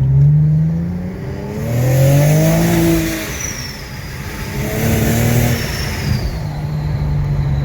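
A car engine accelerating hard: its note climbs, drops back at each gear change and climbs again, three or four times, with tyre and road noise underneath.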